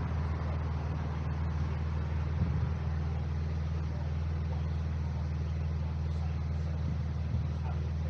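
Steady low drone of idling car engines on a street, heard from above, with a car driving past at the start.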